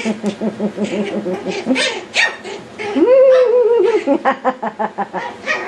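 Yorkshire Terrier puppies play-fighting, with a quick run of yapping and growling and sharp yips.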